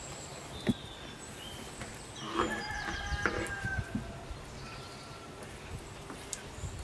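A rooster crows once, starting about two seconds in and lasting over a second, over a couple of soft knocks of a knife cutting dough on a wooden board.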